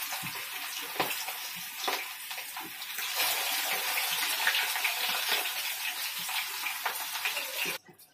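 Chicken 65 pieces deep-frying in hot oil in a kadai: a steady sizzling hiss thick with crackles and pops. It grows louder about three seconds in, as a second piece goes into the oil, and cuts off sharply near the end.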